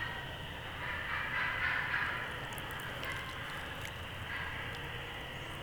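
Wild turkeys calling at a distance: a louder spell of calls about a second in and a shorter one near the end, over a steady outdoor hiss.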